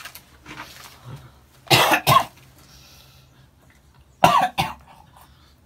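A man coughing hard in two double coughs about two and a half seconds apart, choking on powdered drink mix eaten dry.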